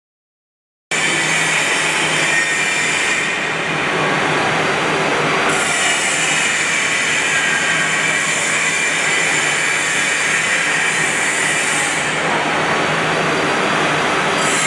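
Heavy industrial machinery running with a steady loud noise and a low hum, typical of a hydraulic press brake or shear working on the shop floor. It starts abruptly about a second in, and its upper hiss drops out and returns a few times.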